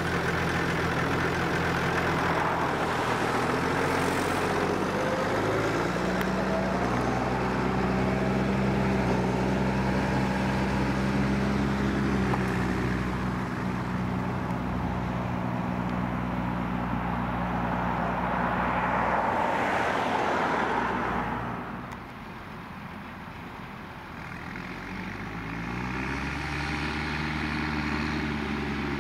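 New Holland T6070 tractor's six-cylinder diesel engine running steadily under load as it pulls a grass harrow. It fades about two-thirds of the way through as the tractor moves off, then grows louder again, its note rising, as the tractor comes back toward the listener.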